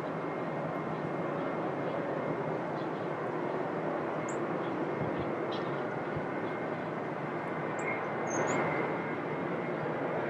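Jet airliner engines running, a steady even noise with a faint high whine. A few brief high chirps come about four and eight seconds in.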